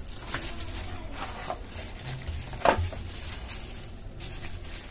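Plastic packaging rustling and crinkling as small parts are handled in a clear zip-lock bag and bubble wrap, with a few light clicks and taps, the sharpest about two and a half seconds in.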